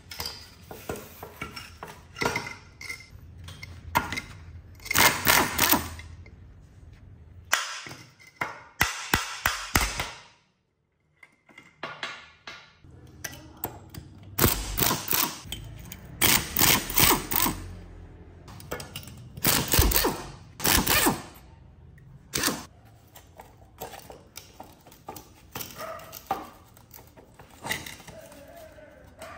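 Hand tools at work on motorcycle parts: a series of short strokes and knocks, irregular in spacing, with a brief break about ten seconds in.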